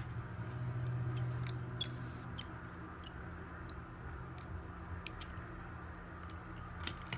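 Scattered small, sharp clicks of a pentalobe screwdriver and the tiny bottom screws of an iPhone 6s being worked loose, over a steady low hum.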